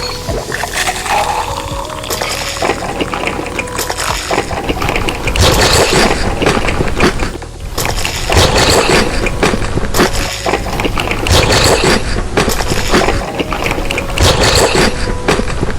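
Background music playing at a steady, loud level.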